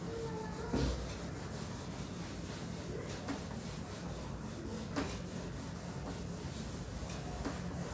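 A cloth duster is wiping marker off a whiteboard with a soft, steady rubbing. A couple of light knocks come through, the loudest about a second in and another about five seconds in.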